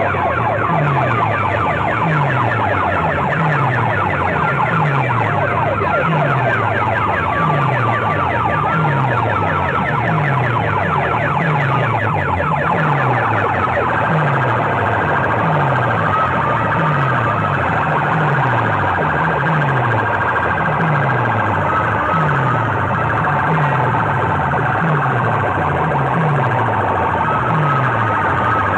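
Banks of horn loudspeakers blasting a loud siren-like electronic track at a sound-system competition. A deep falling sweep repeats about once a second under a rapid rattling pulse and a high wavering tone. The rattle thins out about halfway through.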